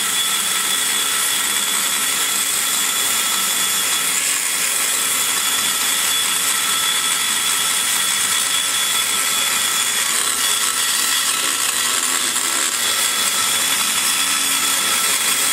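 Die grinder running steadily with a high whine, its ball-shaped cutter grinding away aluminum to shape the exhaust port of a big-block Chevy cylinder head.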